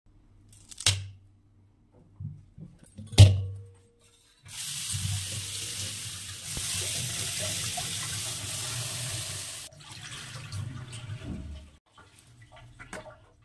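Two sharp cracks as a fresh sweetcorn cob is snapped into pieces by hand, the second the louder. Then a kitchen tap runs for about five seconds, splashing over the corn into a steel pot in a steel sink, followed by light knocks and clatter of the steel pot being handled.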